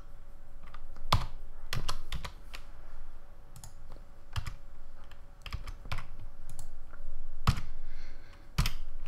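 Computer keyboard keystrokes: about a dozen sharp, irregularly spaced taps as shortcut keys are pressed, over a faint steady hum.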